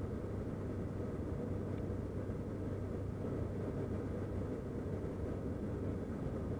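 Turboprop airliner in flight heard from inside the cabin: the propellers and engine give a steady low drone with a constant hum under a rushing noise.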